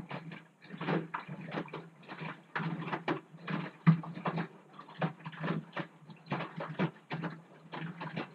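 Front-loading washing machine drum tumbling a load of laundry in water: irregular sloshing and swishing strokes, a few a second, over a steady low hum.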